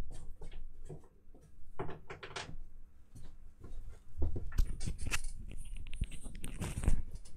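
Small clicks and knocks of parts being handled on a silicone repair mat, then from about four seconds in a louder, denser stretch of crackling and rustling.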